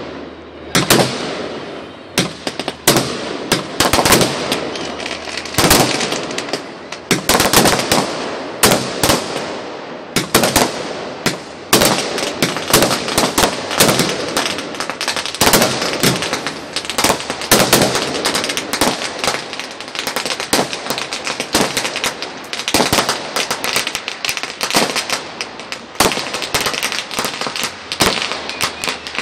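Fireworks going off in a dense barrage: sharp bangs and crackling bursts overlapping several times a second, without a break.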